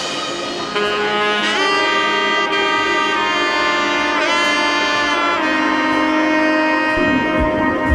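Background music: a melody of long held notes that slide in pitch, with saxophone-like tones over sustained chords.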